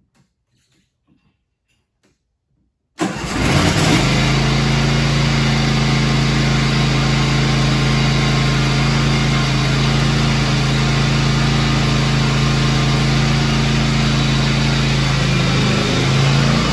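John Deere Z655 zero-turn mower's two-cylinder Briggs & Stratton engine starting about three seconds in, catching at once and settling into steady running.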